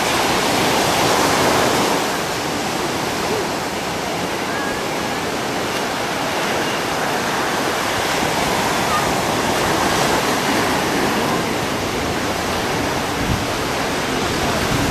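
Surf washing onto a sandy beach: a steady rush of breaking waves, a little louder in the first couple of seconds.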